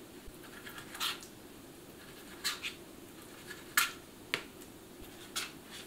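Kitchen knife blade tapping on a plastic cutting board as raw chicken fillet is diced into small cubes: about six sharp, irregular clicks.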